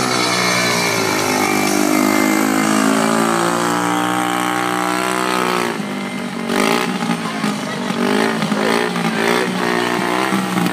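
High-wire motorcycle engine running at low throttle, its pitch slowly sagging and recovering. About halfway through the sound turns choppier and uneven.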